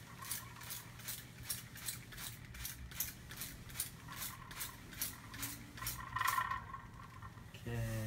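Hand spray bottle misting a cockatoo: quick hissing squirts of water, about three a second, that stop about seven seconds in.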